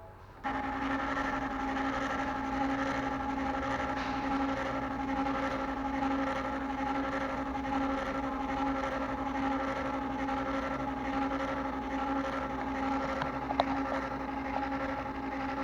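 Small motor of a mini CNC machine running with a steady whine of several held tones over a hiss, starting abruptly about half a second in. A single sharp click comes about two seconds before the end.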